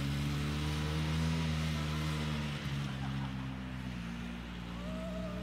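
Snowmobile engine running steadily while towing a banana boat, its pitch dipping slightly about halfway through. A high wavering tone comes in near the end.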